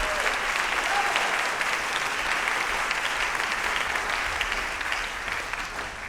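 Large audience applauding: dense, steady clapping, with a brief call or two near the start, beginning to fade out near the end.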